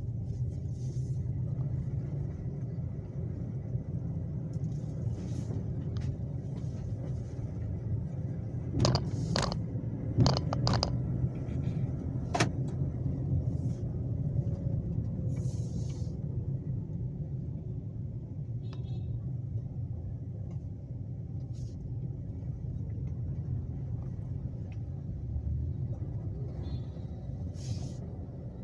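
Car driving slowly, with a steady low engine and road rumble heard from inside the cabin. A quick run of sharp knocks comes about a third of the way in and is the loudest sound.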